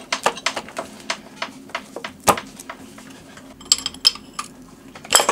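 Metal hand tools and engine parts clinking and knocking in irregular, sharp clicks during engine disassembly, with a brief ringing metallic clang about four seconds in.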